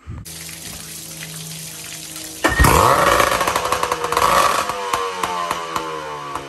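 1994 Tohatsu M40C two-stroke outboard motor running. About two and a half seconds in it is suddenly revved, the pitch climbing, and then the revs slowly fall away.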